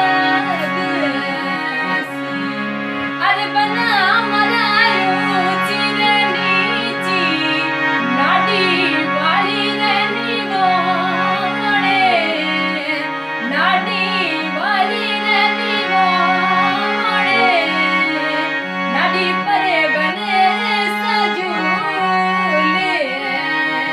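Rajasthani folk song: a voice singing a wavering, ornamented melody over steady held instrumental tones and a repeating bass line.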